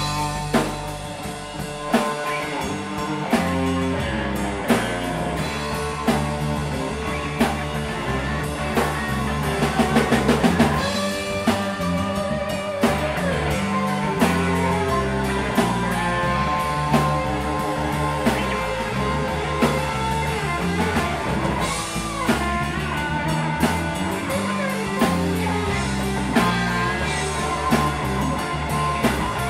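Rock band playing live without vocals: a drum kit keeping a steady beat, a lead electric guitar with bent notes, and electric bass.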